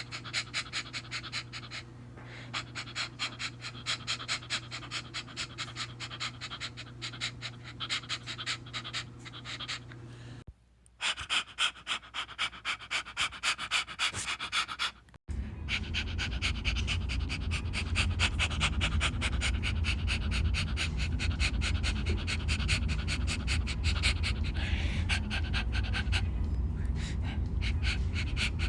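Dog panting rapidly in quick, even breaths, in several clips cut together, with abrupt edits about ten and fifteen seconds in.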